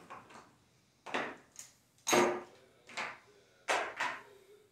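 Casino chips clicking together, about five sharp clacks at irregular intervals, as a stack of chips is counted out and traded for a $100 chip.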